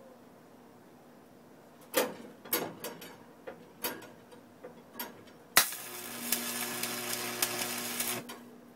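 Stick (arc) welder: a few short crackling sputters as the electrode is struck against the work, then the arc catches and runs with a dense steady crackle over a low hum for about two and a half seconds before it is broken off.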